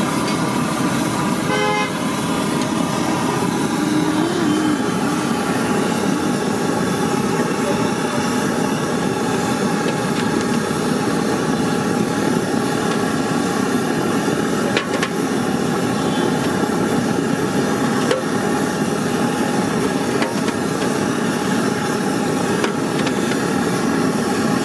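Steady street traffic noise with a short vehicle horn toot about two seconds in, mixed with the sizzle of medu vadas deep-frying in a kadai of hot oil.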